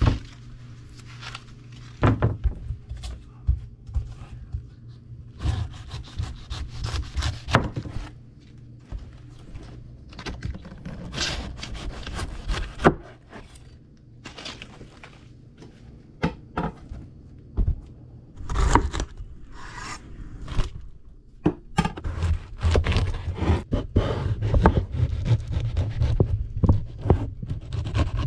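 Kitchen knife cutting through a whole pineapple on a wooden cutting board: irregular sawing and scraping of the blade through the tough rind and flesh, with knocks of knife and fruit on the board. A steady low hum runs underneath and grows louder in the last few seconds.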